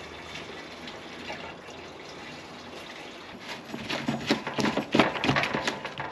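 Gasoline pouring from a plastic gas jug into a riding mower's plastic fuel tank. From about three and a half seconds in, a quick run of sharp clicks and knocks, loudest about five seconds in, as the tank is handled.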